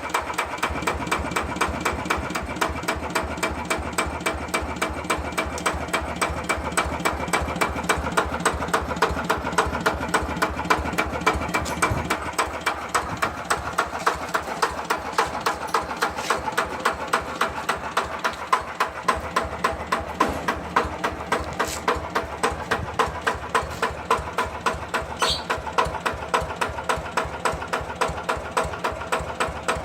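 Yanmar TF85 single-cylinder diesel engine of a hand tractor running steadily, each firing stroke heard as an even, regular beat.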